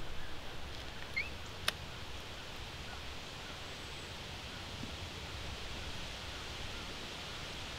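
Quiet woodland ambience: a steady faint hiss, with a couple of brief bird chirps about a second in and one sharp click just after.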